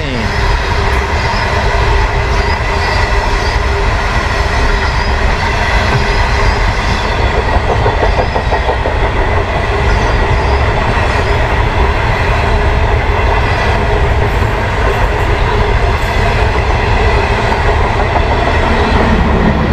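The Ghan passenger train rolling over a railway bridge: a steady heavy rumble of wheels on rails, with a high ringing tone from the wheels. There is a run of clicking over rail joints near the middle.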